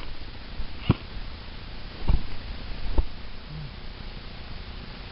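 Airsoft gun fired on semi-automatic: three single shots, each a short sharp crack, about a second apart.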